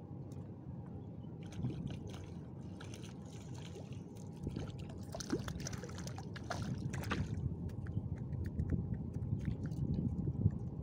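Hooked milkfish thrashing and splashing at the surface of a pond while it is played on a fishing pole, in several bursts over a low steady rumble.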